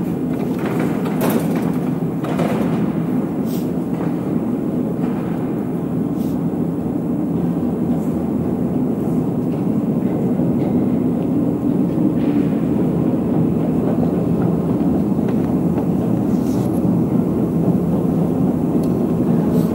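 Steady low rumble of a metro station, with trains and escalator machinery running, growing a little louder toward the end. A few sharp clicks and knocks stand out in the first seconds.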